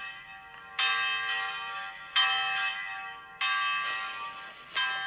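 Telephone hold audio: a bell-like chime struck four times, about every one and a third seconds, each ringing down before the next, heard over the phone line while the call is on hold.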